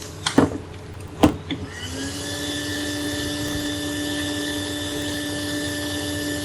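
Two sharp clicks, then about two seconds in a hot air rework station's blower starts up, its whine rising briefly in pitch before settling into a steady airy hiss with a constant whine.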